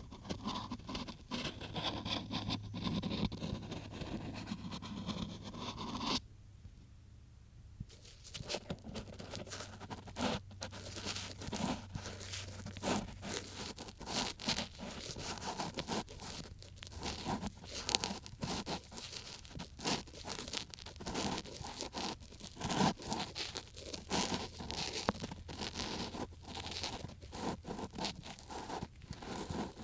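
Ear-cleaning ASMR: an ear pick scraping and rubbing close against a microphone's ear, a dense scratchy rustle that pauses briefly about six seconds in, then goes on as many short strokes.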